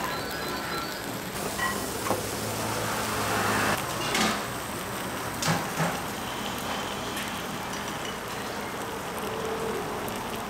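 A few sharp metal clanks and knocks from bungeoppang (fish-shaped bread) griddle moulds being worked, two of them close together about halfway through, over a steady hiss.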